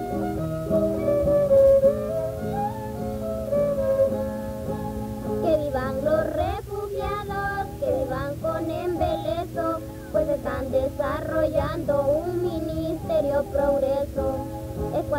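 Music: a flute-like melody over plucked guitar, then about five seconds in, high voices begin singing a song over the guitar.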